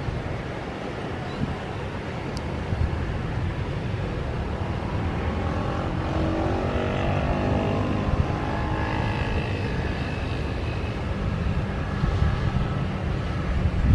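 Airbus A320 jet engines running with a steady rumble and a thin whine as the airliner rolls slowly along the runway, mixed with road traffic. A passing vehicle drops in pitch as it goes by about six seconds in.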